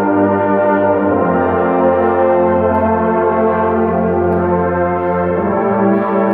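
High school concert band playing held, full chords with brass to the fore, tubas and horns among them. The harmony changes about a second in and again near the end.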